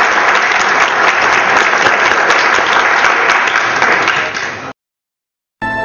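A crowd applauding loudly, a dense steady clatter of many hands, cut off suddenly near the end; after a moment of silence, music begins right at the close.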